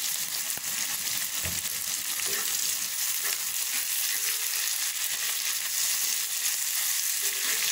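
Sliced onions sizzling as they fry in hot oil in a pan, stirred with a steel spoon that scrapes through them. There is a low bump about one and a half seconds in.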